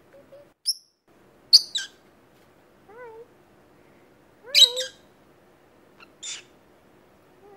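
Peach-faced lovebirds giving short, sharp, high chirps: a loud double chirp about a second and a half in, another loud one in the middle, and softer ones between. Two soft, lower calls that rise and fall come about three and four and a half seconds in.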